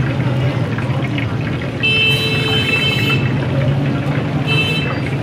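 Fish sizzling and bubbling in deep frying oil over a low steady rumble, while a vehicle horn sounds twice: a long toot about two seconds in and a short one near the end.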